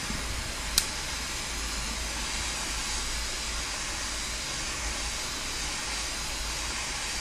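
Handheld gas torch burning with a steady hiss as its flame plays on an aluminium plate, with a single short click about a second in.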